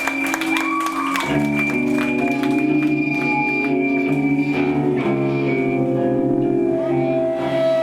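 Live band music: sustained guitar chords over low bass notes come in about a second in, ringing on steadily. A couple of whoops from the crowd are heard just before the chords enter.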